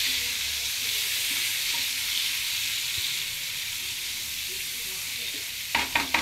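Tomatoes and green chillies sizzling steadily in hot oil with fried onion and ginger-garlic paste in a wok, stirred with a wooden spoon. A few sharp clicks near the end.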